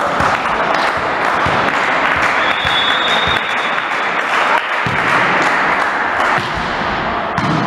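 Clapping and general noise echoing around a volleyball hall, with a referee's whistle blowing a steady tone for about two seconds near the middle, ahead of the serve.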